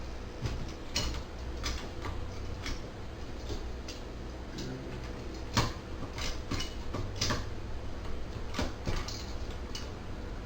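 Heatsink being fitted onto a quad-core AMD processor on a motherboard: irregular clicks and taps of plastic and metal parts being handled, with one sharper click about five and a half seconds in, over a low steady hum.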